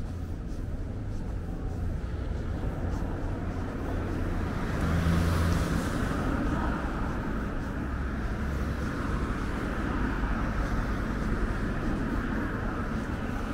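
Street traffic: a steady low rumble of engines, with a vehicle passing close by about five seconds in, its tyre hiss swelling and then fading.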